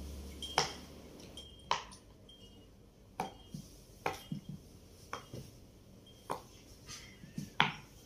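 Rainbow silicone pop-it fidget toy, its bubbles pressed in one at a time by finger, giving a string of sharp pops about once a second, unevenly spaced, with a few fainter pops in between.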